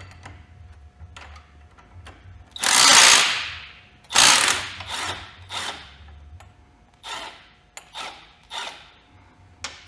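Ratcheting tool loosening and backing out a Harley-Davidson Sportster's rear shock bolt, running in a series of short bursts, the longest and loudest about a third of the way in, then several shorter ones.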